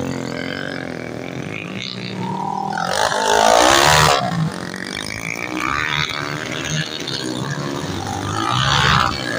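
Dirt bikes racing past on a motocross track, their engines revving and wavering in pitch as each one goes by. The loudest pass comes about three to four seconds in, and another surge comes near the end.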